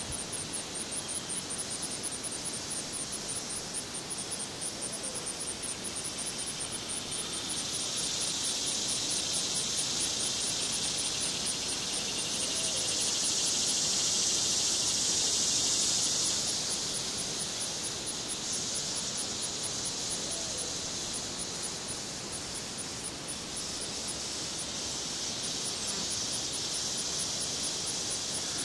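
Outdoor insects calling: a high-pitched, rapidly pulsed chirping that pauses for a few seconds in the middle, and a hissing insect buzz that swells up, peaks midway and fades away.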